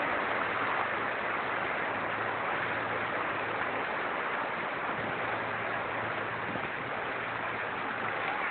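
Steady rush of flowing floodwater, with a faint low steady hum underneath.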